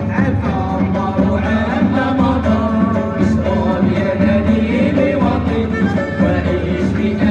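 Live Moroccan traditional ensemble playing: men singing into microphones over oud, violin and keyboard, with a strapped barrel drum and a large goblet drum keeping a steady rhythm.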